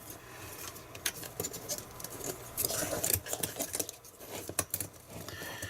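Scattered small clicks, taps and rustles of hands working power-supply cables through a hole and pressing a circuit board down into its housing.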